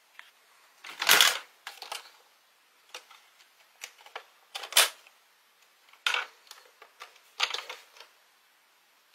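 Hard plastic toy buses being picked up and handled in a cardboard box: irregular clacks, rattles and knocks of plastic, with a few louder knocks, the loudest about a second in.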